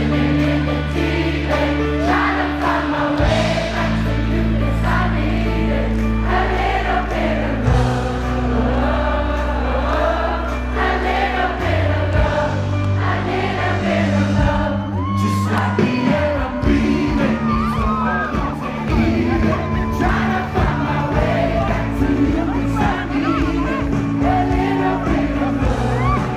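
Live pop-rock band playing through a concert PA, with a large crowd singing along. Long bass notes change every few seconds under the sung melody.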